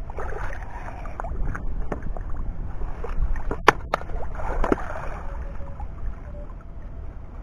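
Water sloshing and splashing as a long-handled perforated metal sand scoop digs into the lagoon bed in shallow water and is lifted out full of mud. Two sharp knocks come about three and a half seconds in, over a low rumble.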